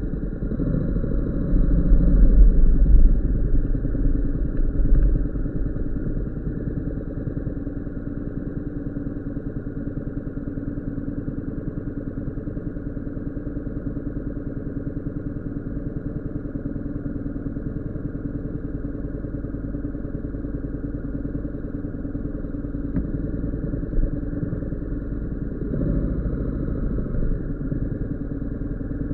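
Motorcycle engine idling steadily after the bike pulls up and stops. The first few seconds are louder, with a deep rumble, and the engine then settles to an even idle.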